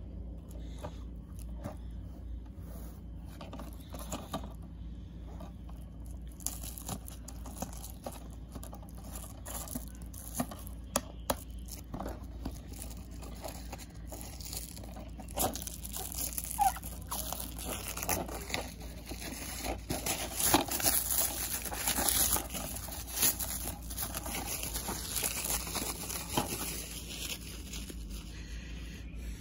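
Thin plastic wrap crinkling and tearing as it is pulled off a DVD case, with scattered handling clicks and taps. The crinkling gets denser and louder about halfway through.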